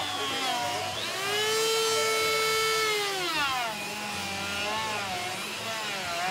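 Carving chainsaw cutting into a wooden sculpture, its engine speed rising and falling with the cut. It holds high revs for about a second and a half, drops off about three seconds in, and runs lower after that with short rises.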